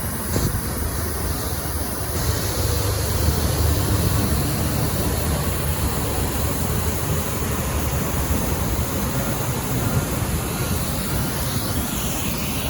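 Hot-water pressure washer rinsing a billboard at low pressure: a steady rushing spray over a low rumble that holds even throughout.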